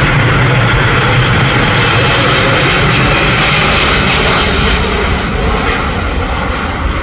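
Steady jet noise from an Airbus A330-900neo's two Rolls-Royce Trent 7000 turbofans as the airliner passes overhead. The noise eases off over the last couple of seconds as the aircraft pulls away.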